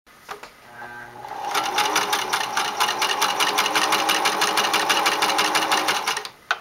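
Singer Merritt 1802 electric sewing machine starting up and speeding up over the first second or so, then stitching through fabric at a steady speed with rapid, even needle strokes. It stops shortly before the end, followed by a single click.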